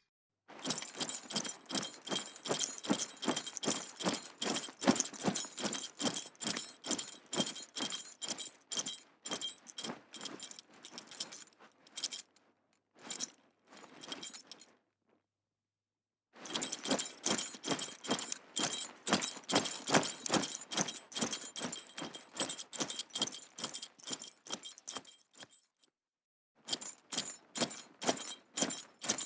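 Horse tack and harness metal jingling in a quick, even rhythm with a trotting horse's gait. It fades and stops about halfway through, starts again, and breaks off briefly near the end.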